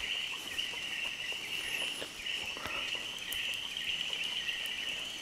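Dense night chorus of frogs calling after rain: many overlapping high-pitched chirps merging into one steady, shrill band.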